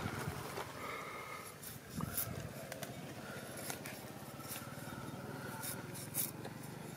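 Small kitchen knife scraping and ticking against a piece held in the hand as it is peeled, a handful of sharp clicks over a steady low hum.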